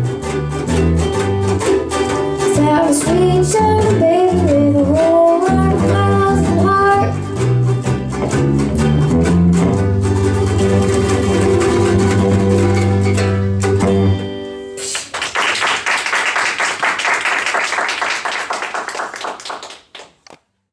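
Children's blues band of three-string guitars with a girl singing into a microphone, ending on a held chord about fourteen seconds in. Applause follows and fades out shortly before the end.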